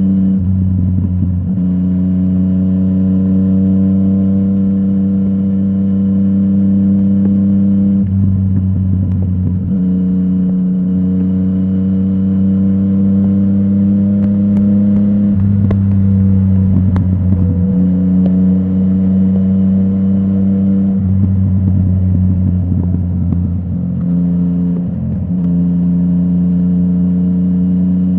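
Yamaha MT-09's three-cylinder engine through a full Akrapovic exhaust, under way at moderate revs. The pitch rises slowly and then steps at several gear changes along the way.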